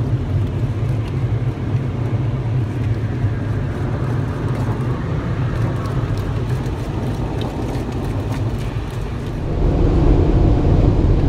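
Automatic car wash heard from inside the car: a steady rush and rumble of the wash working over the car body, with scattered small ticks. The rumble grows louder about nine and a half seconds in.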